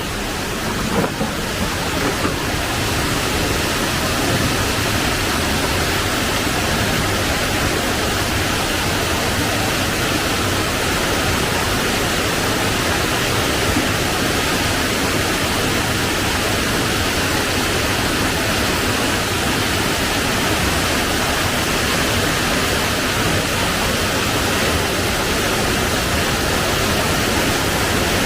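Water of a waterfall rushing, a steady loud roar that swells over the first couple of seconds and then holds.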